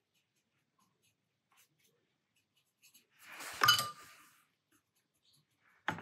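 Quiet at first, then about three seconds in a short scrape and light clink of a watercolour brush working against the palette or ceramic mixing tray.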